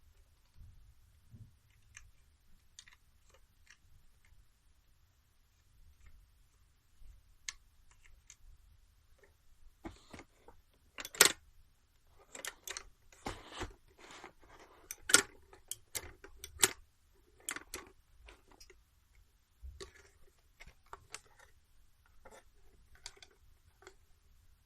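Irregular clicks and knocks from handling an Obake no Q-Taro character alarm clock, busiest through the middle with a few sharp louder clicks.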